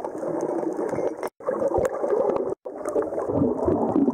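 Muffled underwater water noise picked up by a camera submerged in its housing: a dense, dull rush with scattered crackles. It stops dead twice for a moment, about a second in and again past halfway.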